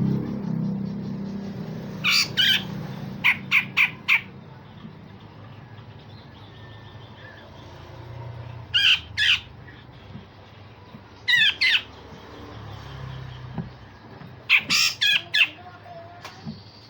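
Cucak jenggot (grey-cheeked bulbul) giving sharp, loud call bursts: short clusters of quick sweeping notes, several seconds apart. A fast run of three notes comes about three to four seconds in, and a denser cluster near the end.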